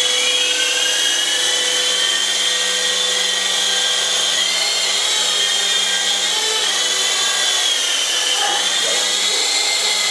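Gyroscopic radio-controlled toy helicopter in flight: the steady, high-pitched whine of its electric motor and spinning rotors, the pitch wavering slightly about four and a half and eight and a half seconds in.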